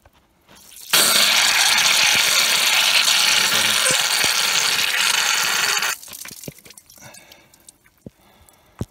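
Air hissing loudly out of the open valve stem of a liquid-loaded rear tractor tire, spitting liquid ballast, as the loosened valve core housing lets go. The hiss starts abruptly about a second in, holds steady for about five seconds and cuts off suddenly, followed by a few small clicks.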